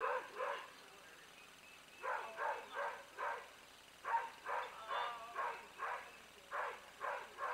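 A dog barking over and over, in runs of three or four barks at about two a second, with a pause of about a second and a half after the first pair.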